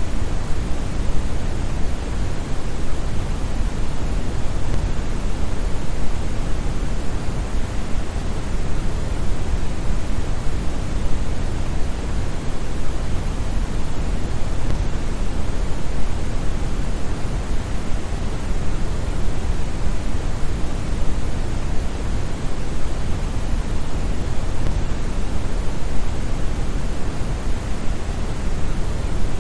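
Steady synthetic brown noise: a deep, even hiss with most of its energy in the bass, unchanging throughout.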